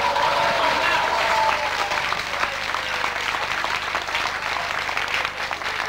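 A room of people applauding, with a few voices calling out over the first couple of seconds.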